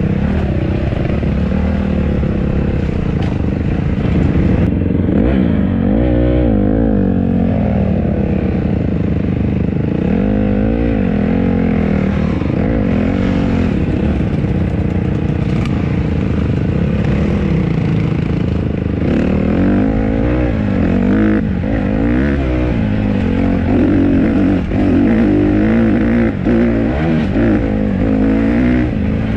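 Honda CRF150RB dirt bike's single-cylinder four-stroke engine running under way on a dirt trail, its pitch rising and falling over and over as the throttle is opened and closed.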